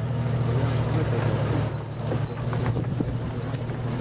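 Jeep Cherokee's 4.0-litre straight-six engine running steadily, with tyres crunching and clicking over loose stone and gravel.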